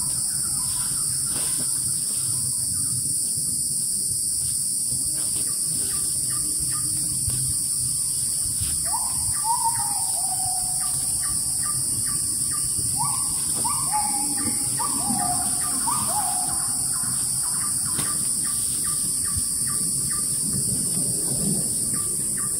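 Forest ambience: a steady high-pitched drone throughout, with a bird calling a run of short falling whistled notes in the middle.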